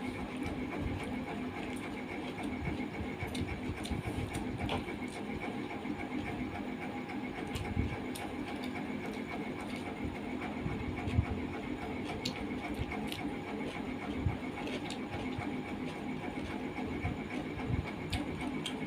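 Eating sounds: fingers mixing rice and curry on a steel plate and chewing, with scattered small clicks and smacks over a steady background hum.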